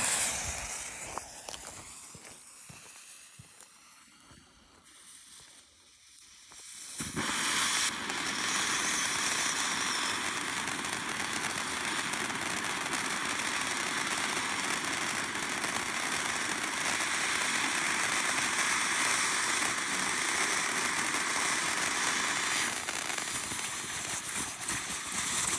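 The fuse of a World Class "Forever Remembered" fountain firework catches with a sputter and burns quietly for about seven seconds. Then the fountain starts with a sudden rise to a steady, loud spray of sparks, and its sound changes a few seconds before the end.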